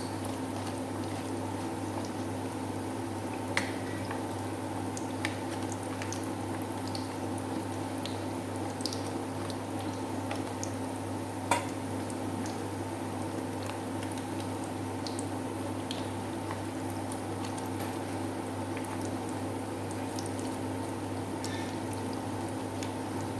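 Hot cooking oil bubbling quietly in a pan of battered vegetables being deep-fried, with occasional sharp pops and crackles over a steady low hum.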